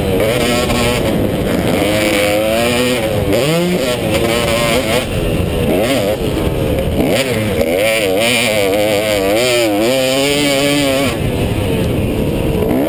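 250-class motocross bike engine at race pace, its pitch swinging up and down constantly with throttle and gear changes, heard on board from the rider's helmet.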